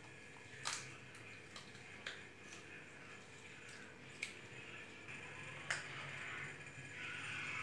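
Kittens eating from a foil tray: a few sharp, separate clicks about a second apart over faint wet chewing.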